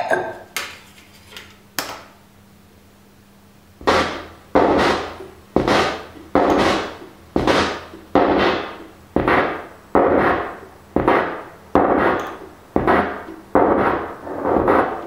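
A few sharp clicks in the first two seconds. Then, about four seconds in, a locked groove on a vinyl record starts looping through the mixer: a sharp percussive hit with a fading noisy tail, two hits to each turn, the loop repeating about every 1.8 seconds.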